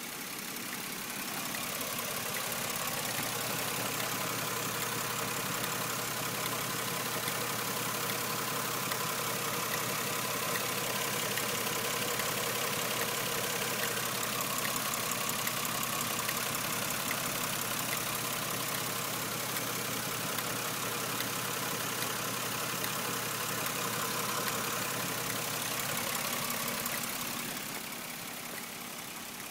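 Fourth-generation Nissan Maxima engine idling, with a steady ticking from the back of the engine near the idle air control valve, whose cause the owner can't find. The sound gets louder about a second in and drops back near the end.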